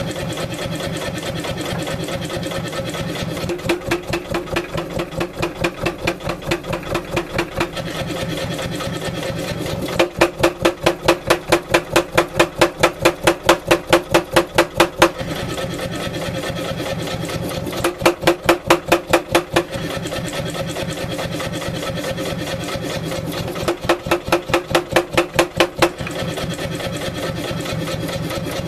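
Power hammer with a 16 kg head forging a wootz steel ingot: the motor runs steadily while the ram comes down in runs of rapid blows, about five a second. There are four such runs, the longest lasting about five seconds, the first one lighter.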